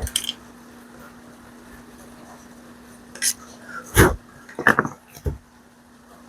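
Hard tools and chainsaw parts knocking and clicking while the saw's fuel lines are being worked on: a click, a few light taps, a loud knock about four seconds in, then a quick run of clatters. A steady low hum runs underneath.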